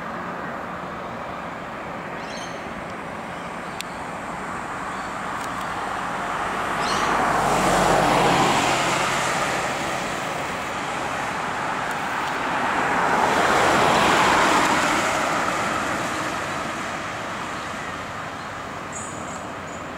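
Steady road traffic noise, with two vehicles passing one after another, each swelling up and fading away over a few seconds.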